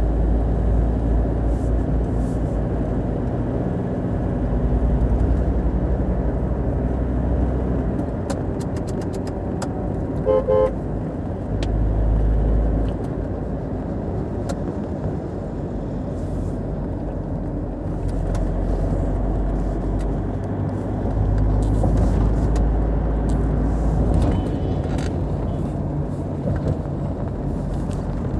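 Car driving on a highway, heard from inside the cabin: a steady low road and engine rumble that swells and eases at times, with two short horn toots about ten seconds in.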